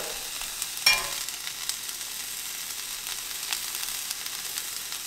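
Reuben sandwich on buttered rye frying in a hot cast-iron skillet: a steady sizzle, with a sharp click of the metal spatula about a second in and a few light taps as sauerkraut is spread.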